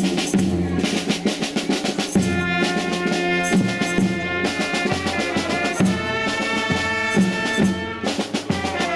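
Street brass band playing a lively tune: trumpets and saxophones over a beating bass drum, with the horn melody coming in strongly about two seconds in.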